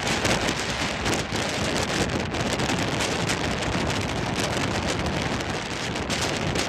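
Heavy wind-driven rain and strong wind buffeting the microphone: a dense, steady rush with frequent sharp crackles.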